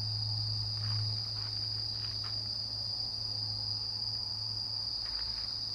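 Night insects trilling in a continuous, steady, high-pitched chorus over a low steady hum.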